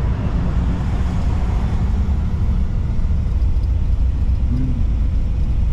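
A car driving along a road: a steady low rumble of engine and road noise.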